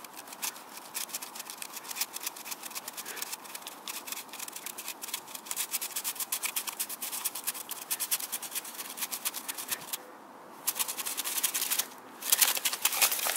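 A thin stick rubbed fast between the palms against a larger stick, wood on wood, for a friction fire: quick rasping strokes, several a second, with a short pause about ten seconds in and the loudest strokes near the end. The speaker judges the wood too wet to catch.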